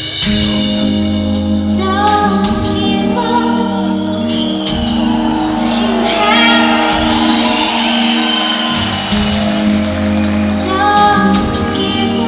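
Live band playing a slow song with a sung vocal line over held bass notes and chords, heard from the audience in a large, echoing arena.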